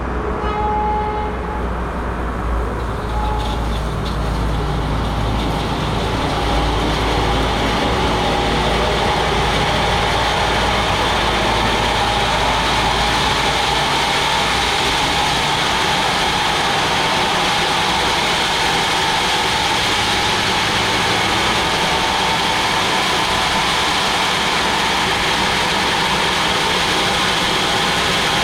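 Sawmill machine running steadily with a low rumble, as a hissing cutting noise builds over the first few seconds and then holds steady.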